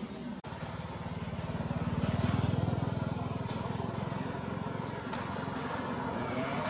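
A motor engine running, growing louder about two seconds in and then easing off.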